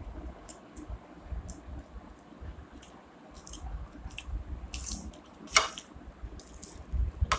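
People chewing and crunching phuchka (pani puri): crisp fried puri shells filled with potato and tamarind water, bitten and eaten with soft squishing, scattered crackles and one sharper click about five and a half seconds in.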